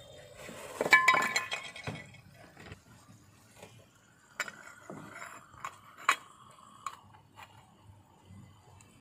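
Cooking dishes and utensils clinking and knocking together: a quick run of ringing clinks about a second in, then scattered single taps and clicks.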